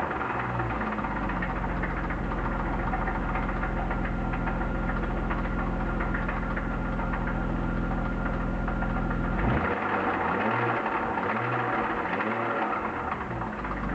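BMW M52B25 2.5-litre inline-six running with a rhythmic knocking, loudest at the front of the engine over the VANOS. The owners suspect a crankshaft main or connecting-rod bearing, with some timing-chain noise as well, since new hydraulic lifters and a new upper chain tensioner have not cured it. The engine note changes abruptly about nine and a half seconds in.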